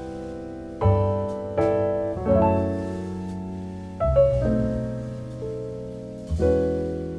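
Slow, calm background piano music: chords struck every second or two, each ringing on and fading away.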